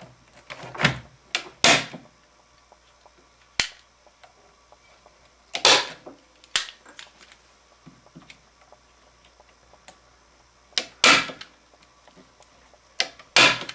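Hand staple gun firing staples through thin plywood gussets into a wooden wing rib: about eight sharp snaps, some in quick pairs, spread unevenly.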